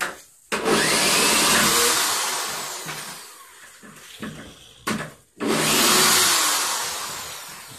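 Power drill running twice in reverse to back out bed-frame screws, each run starting suddenly and dying away over a couple of seconds.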